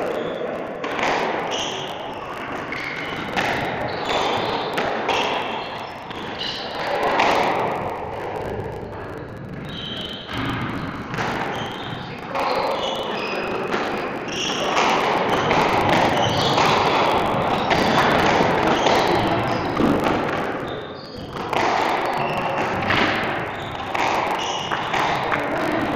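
Squash rally: the ball is struck by rackets and hits the court walls in repeated sharp thuds, with short high squeaks from players' shoes on the wooden floor.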